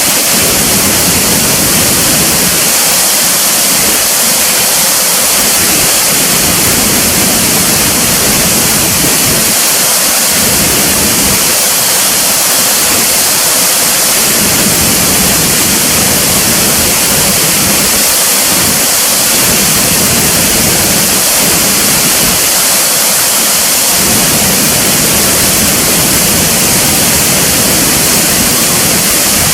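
Waterfall: a steady, loud rush of falling water with a strong hiss, unchanging throughout.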